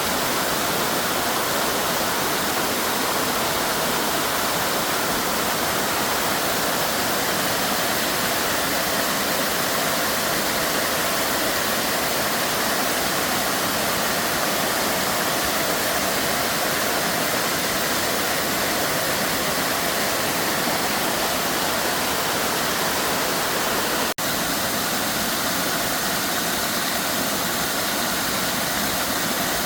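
Waterfall: a steady, loud rush of falling water with no pitch to it, broken only by a momentary dropout about 24 seconds in before it carries on.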